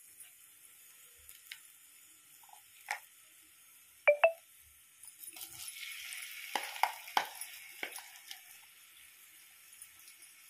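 Two sharp metallic clinks from a steel spoon, then ground gongura chutney paste sizzling as it drops into hot tempering oil in a nonstick pan. The sizzle starts about five seconds in and comes with several spoon scrapes and taps.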